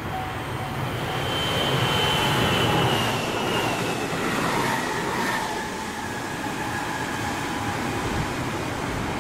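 A JR Shikoku 7200-series electric train passes close by at speed: wheels running on the rails, with a whine that falls in pitch as it goes past. A level crossing's warning bell rings in an even pulse at the start, before the train noise swamps it.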